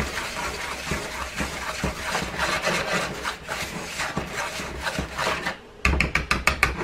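Wire whisk stirring powdery bath-bomb mix of baking soda and oils in a plastic bowl: a steady scratchy rubbing of quick strokes. Near the end, a quick run of sharp taps as the whisk is lifted and knocked against the bowl.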